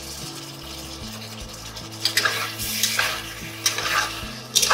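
A pot of potato curry, its water nearly cooked off, sizzling steadily, then a spoon stirring and scraping through the potatoes against the pan in four strokes about a second apart, starting about two seconds in.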